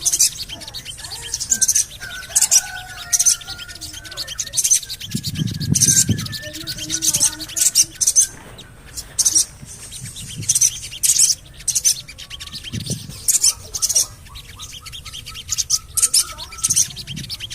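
Sogon birds (spiderhunters) calling: sharp, very high 'cuit' chirps repeated roughly once a second, over a softer warbling song. A short low rumble sounds about five seconds in.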